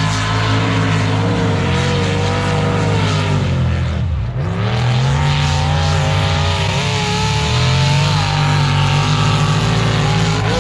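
Modified mud-racing trucks' engines running hard on the track, a loud, steady engine note that drops briefly about four seconds in and then climbs back up.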